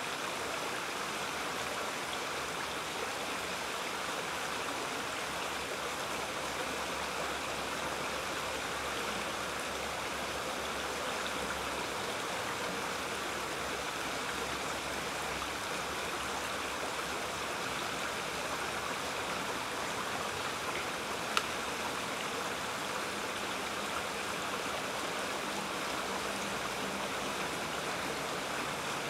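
Small woodland creek running over a shallow riffle: a steady rush of flowing water. A single short click is heard about two-thirds of the way through.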